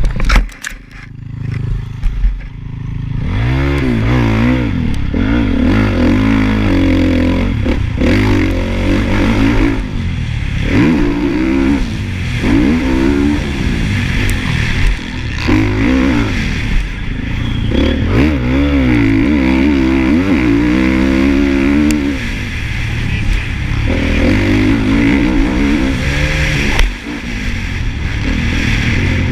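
Honda motocross bike's engine, heard from a helmet-mounted camera while racing, revving up through the gears and shutting off, its pitch rising and falling over and over. It is quieter for a couple of seconds near the start, then picks up.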